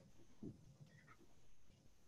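Near silence: faint low background noise, with a soft knock about half a second in.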